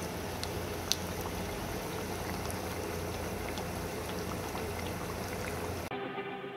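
Pastry-wrapped tuna pies deep-frying in hot oil in a pan: a steady sizzle with scattered sharp pops, cutting off suddenly near the end.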